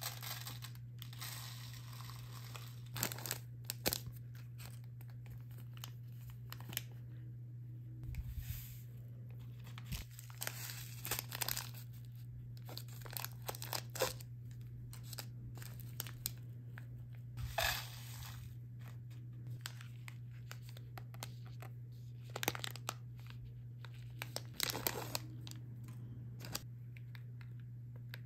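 Small foil candy-kit packets being torn open and crinkled by hand, in irregular bursts of tearing and rustling, over a steady low hum.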